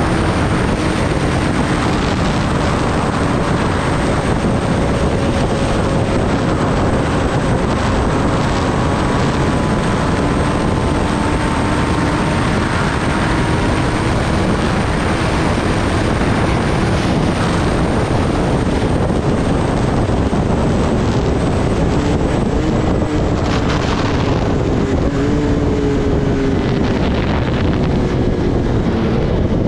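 Kawasaki Ninja ZX-10R inline-four sport bike cruising at steady speed, heard mostly as heavy wind rush on the microphone. The engine shows through as a faint tone that drifts slowly up and down in pitch.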